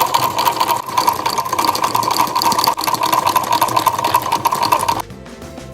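A shoe-repair sewing machine running at speed with a fast, even stitching rhythm. It stops abruptly about five seconds in, and music follows.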